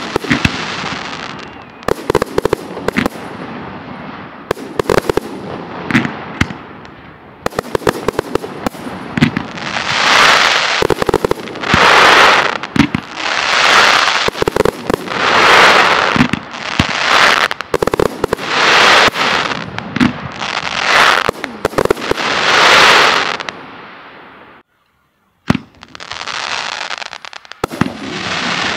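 Professional aerial fireworks shells and F3 items launching and bursting with many sharp bangs, through a middle stretch of long, loud noisy swells, one about every second and a half. The sound cuts out briefly near the end, then the bangs resume.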